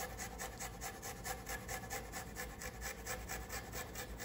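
A garlic clove being grated on a handheld rasp grater: quick, even rasping strokes, about six a second.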